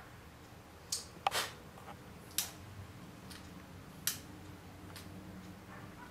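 A series of short, sharp clicks, about seven in six seconds and unevenly spaced, from hands working small hardware: a long-reach lighter and a hose fitting. A faint steady low hum runs underneath.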